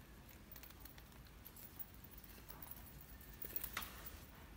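Faint handling sounds of a watch being unwrapped: plastic wrapping rustling and small clicks from the resin strap and metal buckle, with a short cluster of louder clicks near the end.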